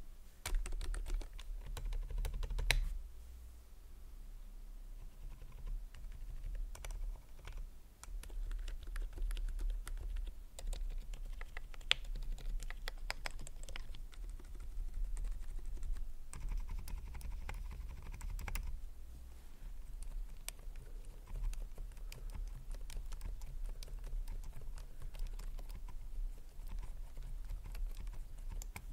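Typing on a Keychron K10 Pro mechanical keyboard fitted with Outemu Silent Peach V2 linear silent switches: a continuous run of keystroke clicks, busier in the first few seconds and again a little past the middle.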